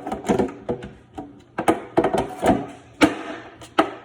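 Hard plastic clicking and knocking, irregular, as the snap-on plastic piece of a Samsung refrigerator drawer is pushed and tapped against the drawer in a struggle to snap it into place.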